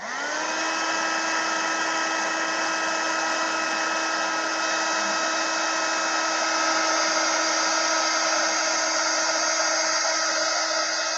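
Craft heat gun switched on with a click, spinning up over the first half second, then running steadily with an even blowing hiss and a steady motor whine, drying wet Distress Oxide ink on card.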